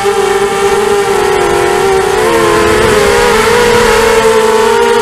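FPV racing quadcopter's brushless motors and propellers whining in flight, recorded by the onboard camera: a loud whine of several close pitches that shift and wobble about two seconds in as the throttle changes.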